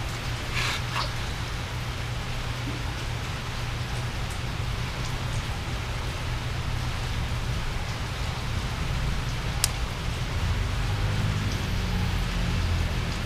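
A steady hiss with a low rumble underneath, with a few light metallic clicks as a motorcycle drum brake shoe assembly is handled, the sharpest click about ten seconds in.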